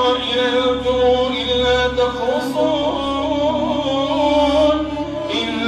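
A solo male voice chanting in long, melodic held lines over a steady low hum.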